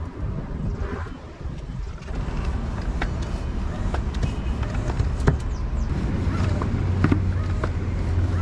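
Air compressor running steadily, inflating a tubeless mountain-bike tyre freshly plugged with a repair strip. Its hum grows louder about two seconds in, with a few sharp clicks on top.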